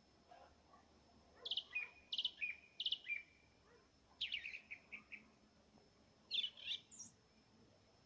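Nightingale singing: three loud repeated notes, each sliding down in pitch, then a fast run of notes, then a short complex phrase near the end.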